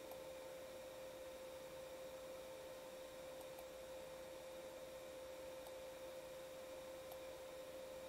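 Faint steady hum: one held tone under light hiss, with a few faint ticks.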